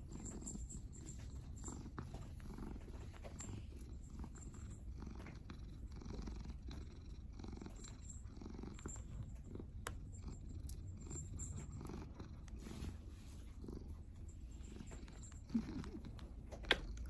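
Domestic grey tabby cat purring steadily while being stroked. Two brief knocks sound near the end.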